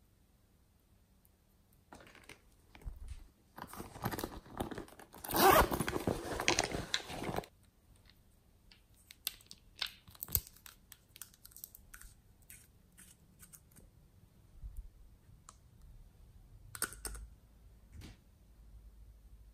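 Nail polish bottles handled and uncapped by hand: a few seconds of dense rustling and crinkling starting about two seconds in, loudest around the middle, then scattered light clicks and taps of the glass bottles and caps.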